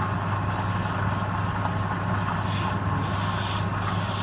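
Wood lathe's electric motor running steadily with a constant low hum.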